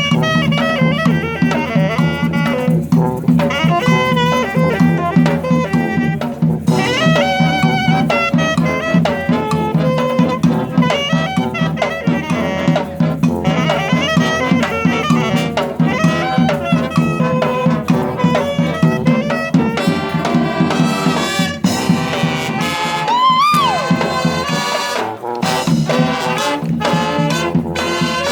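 Street brass band playing, with trumpets and trombones to the fore. Late on, a horn bends up in pitch and falls back, and the low bass part drops out.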